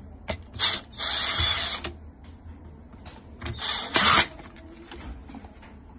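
Cordless power screwdriver run in two short bursts, about a second each, backing out the screws of a wall outlet's cover, with a few clicks of handling between them.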